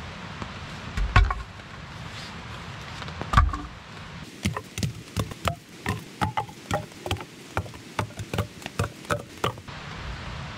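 Wood being struck: two heavy, separate blows, then a quick run of lighter, sharp knocks at about three a second that stops shortly before the end.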